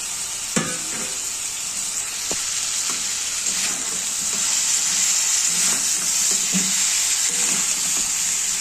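Cauliflower florets and potato pieces sizzling in hot oil in a steel kadai while a metal spatula stirs and scrapes them, the spiced mixture being sautéed down (kosha). A sharp knock of metal on the pan comes about half a second in, and the sizzle grows louder about halfway through.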